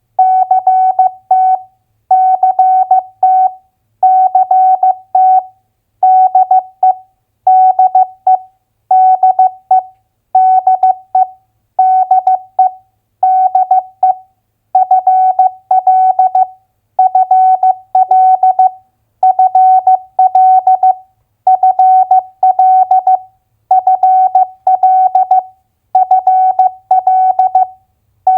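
Morse code (CW) sent as a single steady beep tone keyed on and off at 15 words per minute: short clusters of dots and dashes, each a two-letter US state abbreviation, with a pause after each one, about every one and a half seconds.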